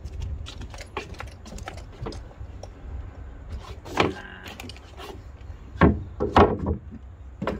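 Timber boards being handled and set down on a wooden deck: scattered knocks and clatters, the loudest about four seconds in and again around six seconds in, over a steady low rumble. The circular saw is not running.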